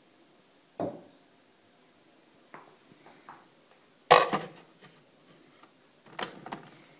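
Ceramic mug knocking against the plastic cup stand of a Bosch Tassimo as it is set in place under the spout: a few light knocks, the loudest clunks about four seconds in, and a short clatter near the end.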